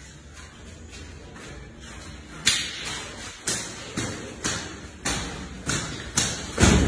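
Belts lashing in a bare concrete room: a run of sharp, echoing cracks, about two a second, starting about two and a half seconds in.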